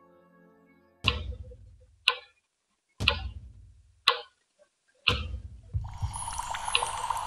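Clock ticking loudly, five ticks about a second apart, alternating heavier and lighter, each with a short ringing decay. Near the end, water bubbling and fizzing in a glass takes over.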